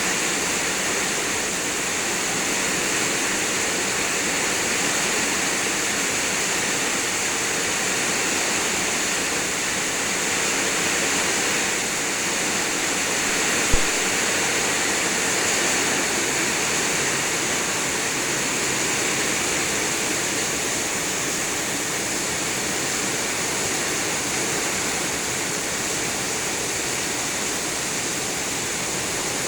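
Heavy rain pouring down in a steady, even hiss, with a single sharp knock about fourteen seconds in.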